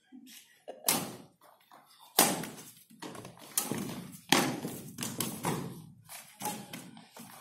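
Badminton racquets striking a shuttlecock back and forth in a rally: a run of sharp smacks about once a second, each ringing briefly in a large hall.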